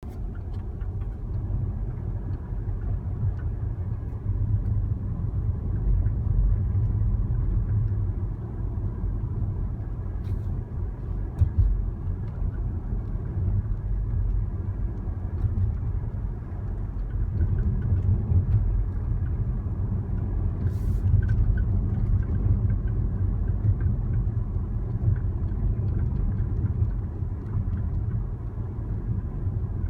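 Steady low rumble of a moving vehicle with a faint, intermittent creaking, chirping noise and a few short clicks on top.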